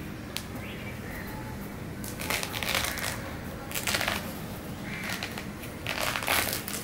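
Thick pomelo rind being split and pulled off the fruit by hand: three short bursts of tearing, crackly rustling, about two seconds in, around four seconds, and near the end.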